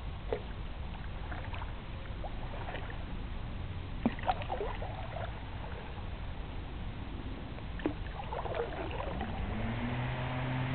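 Canoe paddling on calm water: wooden paddle strokes and water sounds, with a few sharp knocks, over a steady low rumble. A steady low hum comes in near the end.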